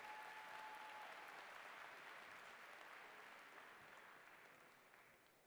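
Audience applause that fades away steadily, with one long, high call from the crowd held over it in the first second.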